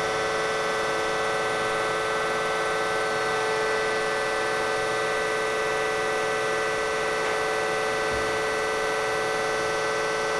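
Marvel Series 25 vertical bandsaw running with its hydraulic pump on: a steady, even machine hum with a whine of several steady tones.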